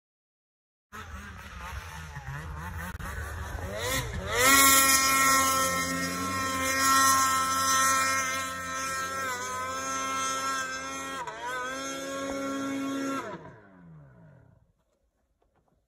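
Two-stroke mountain snowmobile engine revving hard as the sled is powered out of deep powder and ridden away. It starts about a second in, climbs to high revs about four seconds in, holds there with two brief dips, and fades out near the end as the sled moves off.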